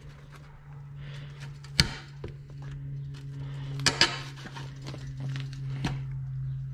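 Pliers cutting out a missed metal hog ring that holds the vinyl seat cover to the seat frame, giving three sharp snaps about two seconds apart, the middle one the loudest, with smaller ticks of metal and vinyl handling between. A steady low hum runs underneath.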